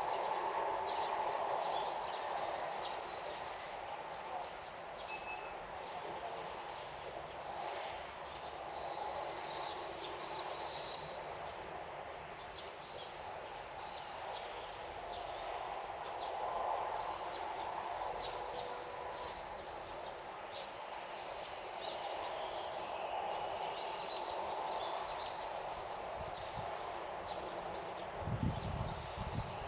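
Birds giving short chirps and calls again and again over a steady outdoor background hush that rises and falls, with a brief low rumble near the end.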